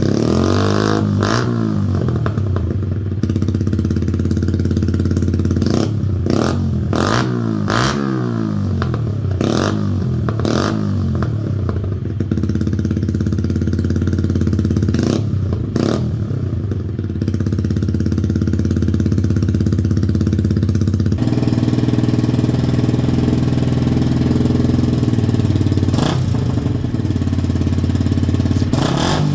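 Yamaha YZF-R125's single-cylinder 125 cc four-stroke engine idling and being revved in a series of quick throttle blips through a test exhaust, with sharp cracks on some of the blips. About 21 seconds in the sound cuts abruptly to the engine idling through a different exhaust, with one more blip near the end.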